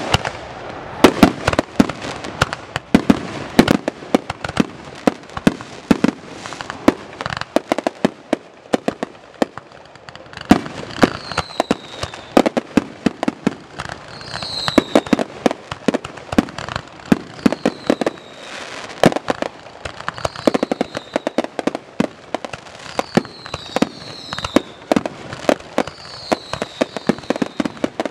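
Fireworks finale: a dense, rapid string of bangs and booms from aerial shells and ground-fired cakes. From about eleven seconds in, short falling whistles come every second or two among the bangs.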